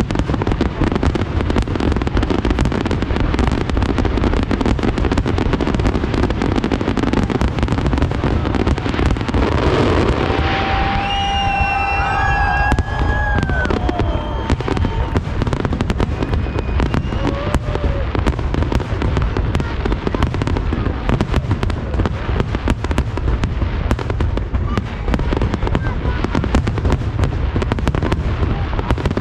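Aerial fireworks display: shells bursting and crackling in a dense, continuous barrage of bangs.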